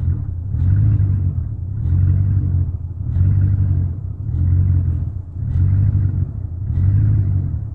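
1999 Chevrolet Silverado 1500 engine idling roughly, its note swelling and dropping back in even waves a little over once a second. The rough idle persists after new intake manifold gaskets, spark plugs, plug wires and fuel pump, and its cause is still unknown.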